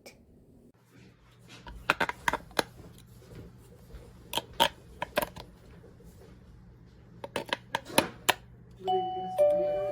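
A series of sharp clicks and knocks in small clusters, then near the end a wireless doorbell receiver starts playing an electronic chime of steady held tones.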